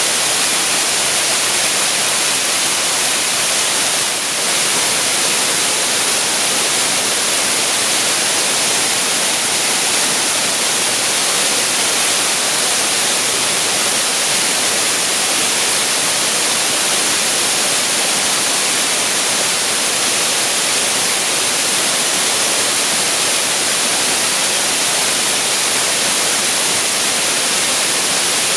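Waterfall pouring steadily: a loud, unbroken rush of falling water with a strong hiss.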